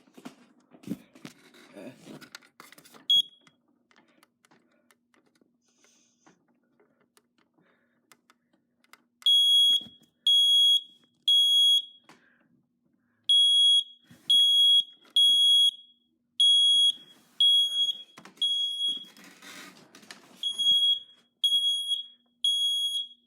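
Sealed-battery smoke detector sounding its test alarm: loud, high-pitched piezo beeps in groups of three with a short pause between groups, the temporal-three pattern, starting about nine seconds in. Before it, a few knocks and one short beep come as the detector's test button is worked.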